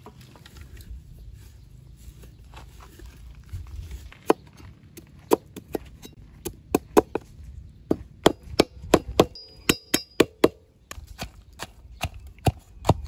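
A cleaver chopping on a wooden cutting board: sharp knocks, the first about four seconds in, then coming quicker, about two a second, in the second half. Near the end a pestle pounds in a clay mortar.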